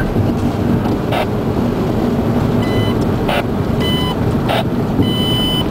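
Steady road and engine rumble inside a moving car's cabin. Over it come three short high electronic beeps, the last one a little longer, and a few brief hissing bursts.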